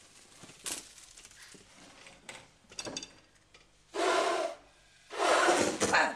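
Brushwood rustling and scraping in a stove's firebox, then a woman blowing hard into the firebox twice, a short blow about four seconds in and a longer one about a second later, trying to get a fire that will not catch to burn.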